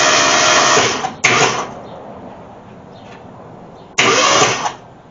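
Starter motor cranking the Ford Falcon's engine in three short bursts: about a second, then half a second, then most of a second near the end. Each burst stops abruptly and the engine does not catch.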